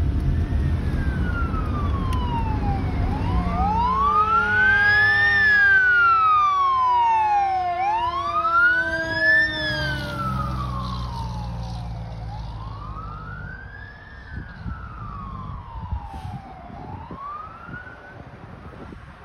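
Wailing sirens of a fire engine and an ambulance running code 3, two slow rising-and-falling wails overlapping, with blasts of air horn. Loud at first, then fading as the vehicles move away.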